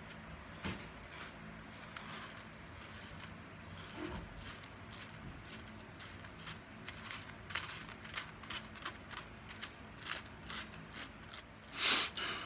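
A plastic card tapping and scraping on a paper plate, chopping crushed Fruity Pebbles cereal into a line, in a run of light clicks and scrapes. Near the end, one loud, sharp snort.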